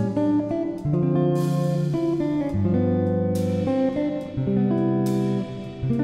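Background music led by guitar, a melody of held notes changing every half second or so, with a bright accent about every two seconds.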